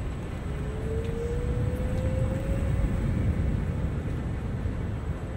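Low, steady rumble of city street traffic, with one motor's whine rising slowly in pitch for about two seconds near the start.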